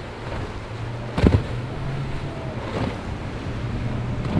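Center-console boat with a Suzuki outboard motor running through choppy inlet waves: a steady engine hum over rushing, splashing water. A sharp thump comes about a second in.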